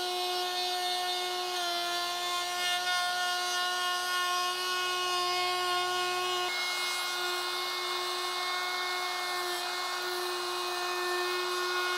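Compact router spinning a rabbeting bit and cutting a rabbet along the inside edge of a walnut frame: a steady high motor whine with the rasp of the bit chewing wood. The pitch sags slightly about a second and a half in as the bit takes the load.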